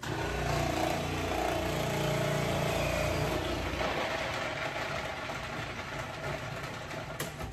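Electric food processor motor running steadily while carrots are pushed down its feed chute and chopped. It starts suddenly and stops near the end.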